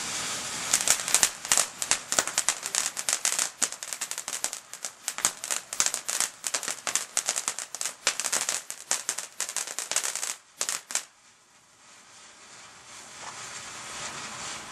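Ground fountain firework going off. It hisses, then breaks into dense, rapid crackling about a second in. The crackling stops abruptly near the end, leaving a quieter hiss.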